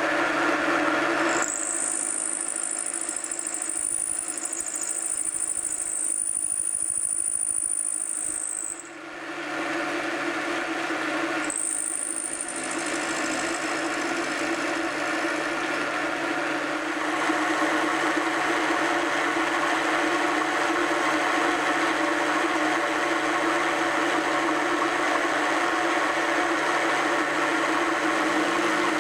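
Milling machine running steadily, with a high-pitched squeal of the cutter in metal that comes in twice, for about seven seconds and then about a second.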